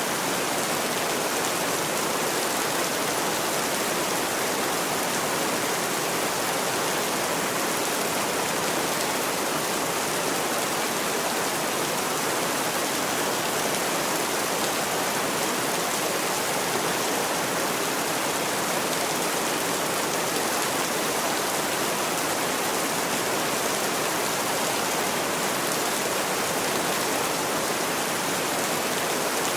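Heavy rain pouring steadily, an even, dense hiss that stays unchanged throughout.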